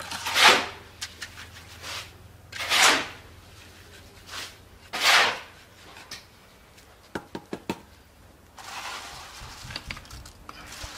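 A steel hand trowel scraping across wet concrete in three strokes about two seconds apart, each lasting about half a second. A few quick clicks follow, then a steady gritty noise near the end.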